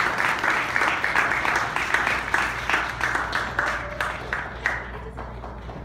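Guests applauding the newly married couple with dense clapping that thins out and fades over the last couple of seconds.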